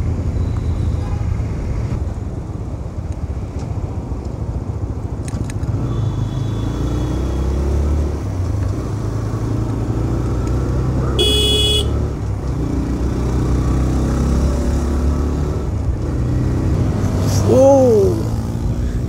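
TVS Raider 125's single-cylinder engine running steadily as the motorcycle rides, with a low rumble of engine, wind and road noise on the helmet-mounted mic. A short high-pitched beep comes about eleven seconds in, and a brief rising-and-falling tone near the end.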